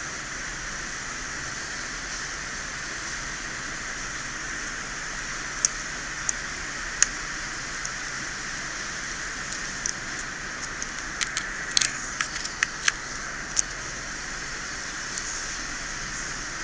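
Small sharp clicks and taps of tools and phone parts being handled at a repair bench, a few at first and then a quick cluster past the middle, over a steady hiss.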